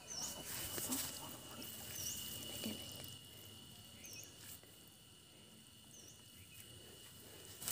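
Digging with a hoe in wet mud, a few scrapes and knocks in the first three seconds, then quieter sounds of hands working in the mud. A short high chirp repeats about every two seconds, over a faint steady high tone.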